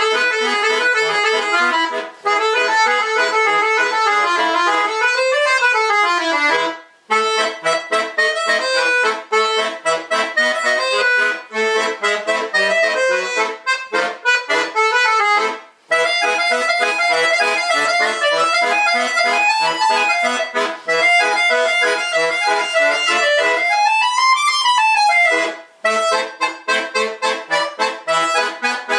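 Solo bayan (Russian chromatic button accordion) playing a fast, busy tune. A quick run sweeps up and back down about five seconds in and again near the end, and there are short breaks between phrases.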